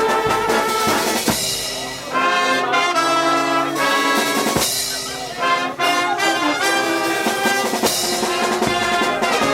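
Brass orchestra of trumpets and trombones playing a piece together, held chords changing every second or so, with drum strokes.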